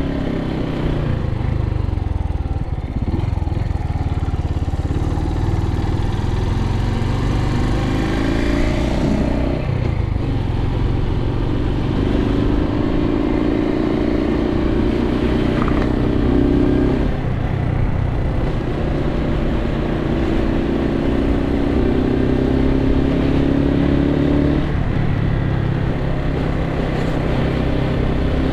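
Suzuki TU250x's single-cylinder engine running under way. Its revs climb steadily and drop back abruptly about three times, as with gear changes.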